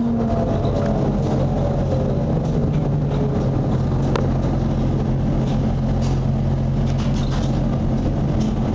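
Cabin sound of a ZIU-9B trolleybus on the move: the electric traction motor's steady hum, with a whine that falls in pitch over the first couple of seconds, over road and body rattle. One sharp click about four seconds in.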